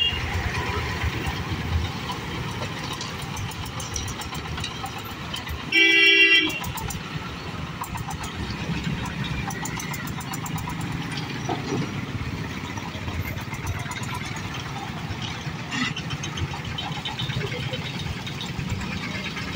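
Steady road traffic of motorcycles and cars passing, with one loud vehicle horn honk lasting under a second about six seconds in and a short high beep at the start.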